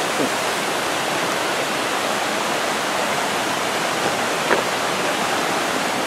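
Waterfall on the Yokokawa River rushing steadily, an even wash of falling water with no break.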